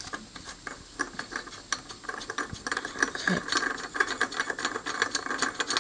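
Quick, irregular light metallic ticks and rattles, growing denser about two seconds in, as the flywheel nut of a Briggs & Stratton 6 HP mower engine is spun off the crankshaft threads by hand.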